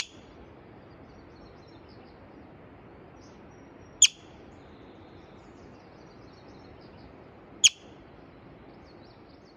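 A bird gives three sharp, loud chirps, about four seconds apart, over faint scattered chirping of birds and a steady background hiss.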